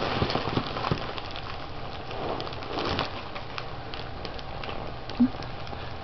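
Foil helium balloon crinkling and crackling close to the microphone, with a rushing hiss as helium is sucked out of it.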